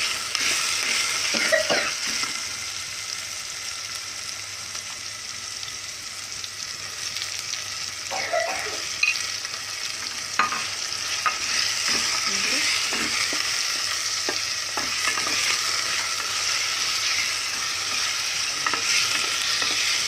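Chicken pieces frying in hot oil, a steady sizzle, with a metal utensil scraping and tapping against the metal pot as the pieces are stirred.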